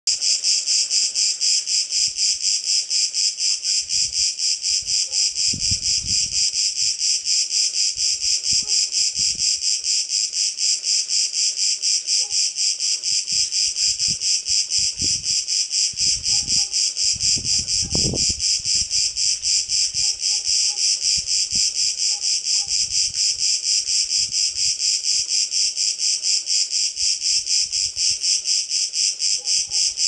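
A Cretan cicada (Cicada cretensis) singing continuously: a loud, high buzzing song pulsing evenly at about three to four pulses a second.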